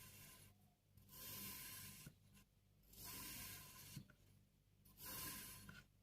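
Kinetic sand being worked, in three soft strokes of about a second each, some two seconds apart.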